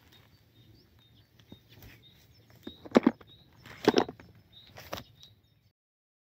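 Footsteps through grass: three loud rustling steps about a second apart, over faint bird chirps, then the sound cuts off suddenly.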